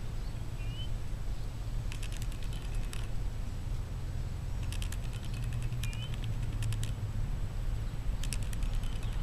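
Cat crunching dry kibble from a food bowl: three spells of quick clicking, over a steady low rumble.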